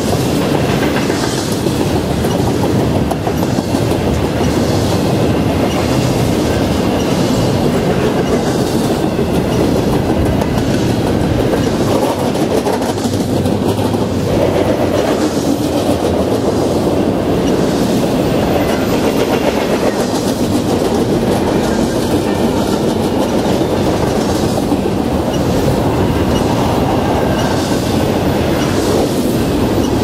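Double-stack intermodal freight train's container-laden well cars rolling steadily past, with the repeated clickety-clack of wheels over rail joints.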